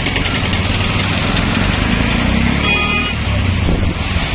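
Street traffic with a steady low rumble of bus and motor-vehicle engines. A brief high-pitched horn sounds a little more than halfway through.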